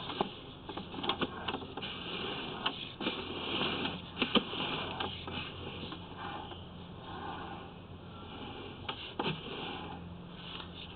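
Sewer inspection camera and its push cable moving through clay sewer pipe, with scattered short clicks and scrapes over a steady low hum.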